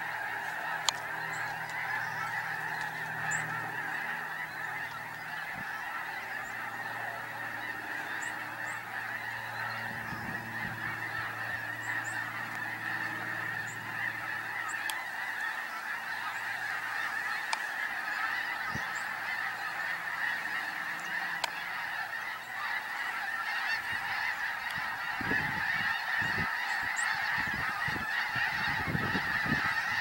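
A large flock of snow geese calling in flight: a dense, unbroken chorus of many overlapping calls, growing louder in the last few seconds.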